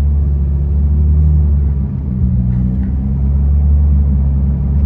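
Honda City i-VTEC petrol engine with an aftermarket exhaust, heard from inside the cabin as a steady low drone while the car drives along, with a brief dip about two seconds in.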